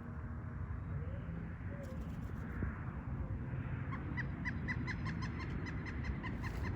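Woodpecker making a rapid, even run of short sharp sounds, about five a second, starting about four seconds in.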